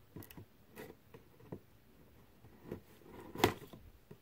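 Light handling noises of a cardboard box and a knife: scattered soft taps and knocks, the sharpest about three and a half seconds in.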